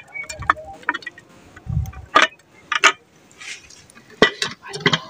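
Pressure cooker and stainless steel pot knocking and clinking together as cooked dal is emptied from one into the other: a string of sharp metal knocks, with two dull thuds in the first two seconds.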